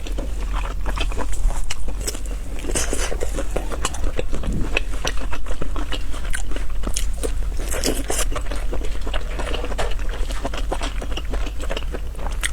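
Close-miked eating: biting and chewing with many quick crunches and clicks, steady throughout, over a steady low hum.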